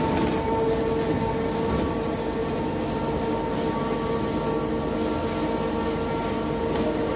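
Scania K270 trolleybus running, its electric traction drive giving a steady whine over road and body noise; the whine eases a little after the start and swells again near the end.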